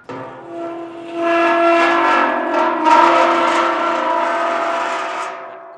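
A metal gong ringing with many steady, clashing overtones. It swells twice and slowly fades away near the end.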